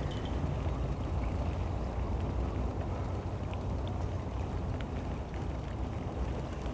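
Boat's outboard motor idling steadily with a low hum, under a faint hiss.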